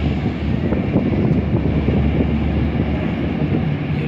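Wind buffeting the microphone over a steady, low engine drone.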